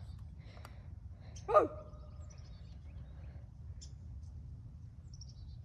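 Small birds chirping faintly a few times over a steady low outdoor rumble, with a short loud spoken 'oh' about a second and a half in.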